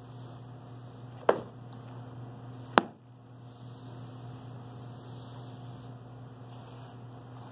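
Two sharp knocks, the second louder, as a long cardboard kit box is turned over onto a table, over a steady low electrical hum.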